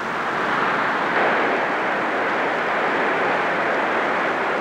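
Water gushing from an opened hydrant outlet: a steady rushing hiss that swells up at the start and begins to fade near the end.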